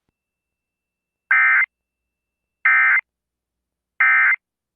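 Emergency Alert System end-of-message signal: three short, buzzy two-tone digital data bursts, each about a third of a second long and about a second apart, marking the end of a National Weather Service severe thunderstorm warning.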